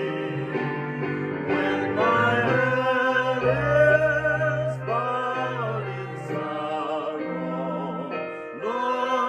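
A woman and a man singing a hymn together as a duet, in held phrases.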